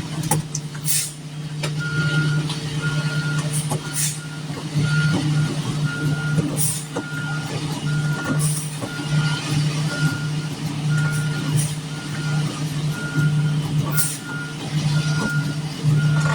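Concrete mixer truck's diesel engine running steadily while its reversing alarm beeps in an even, repeating pattern, starting about two seconds in, with scattered knocks and scrapes.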